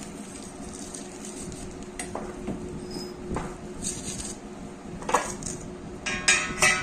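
A few light metallic clinks and knocks of steel being handled, over a steady low hum. Strummed guitar music comes in near the end.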